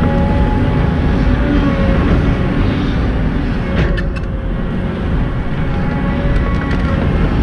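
Simulated diesel engine rumble played by an RC truck's engine sound-effect module, running steadily. A brief dip and a click come a little past halfway.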